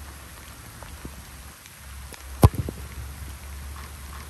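Heavy rain falling steadily. About two and a half seconds in there is one sharp thump, the loudest sound, followed by a couple of smaller knocks.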